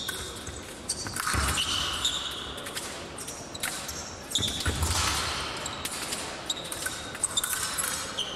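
Épée fencers' footwork on the piste: shoes squeaking in short bending squeaks, and sharp clicks throughout. Two heavier foot thuds, like lunges or stamps, land about a second in and again near five seconds.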